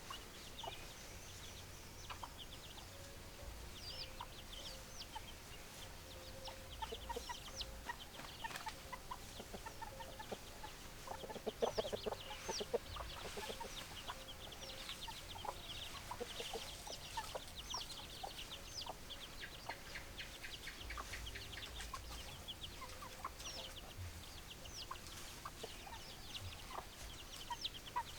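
Chickens clucking, with many short, high chirps falling in pitch throughout. A louder burst of clucking comes about twelve seconds in.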